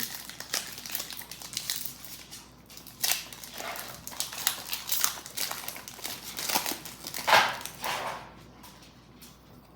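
Foil Pokémon booster pack wrappers crinkling as packs are handled and opened, with a dog barking now and then in the background. The crinkling is irregular and dies down after about eight seconds.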